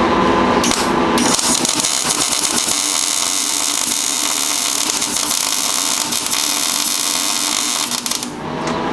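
Electric arc welding of the pickup tube onto a big-block Chevy oil pump: the arc strikes about a second in and runs as a steady crackling hiss, stopping shortly before the end. The weld keeps the pickup tube from coming loose and falling off inside the engine.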